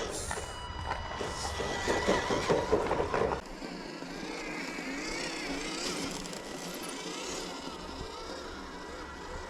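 Electric motor and gears of an RC crawler whining, the pitch wavering up and down with the throttle. For the first three seconds or so, louder rustling and knocks over a low rumble cover it; these stop suddenly.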